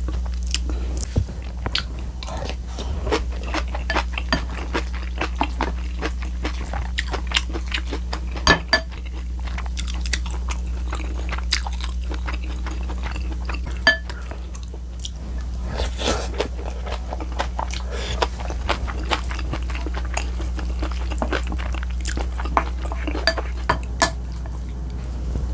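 Close-miked mukbang eating: crunchy chewing of kimchi and radish, with utensils clinking against dishes. The clinks and crunches come many times, over a steady low hum.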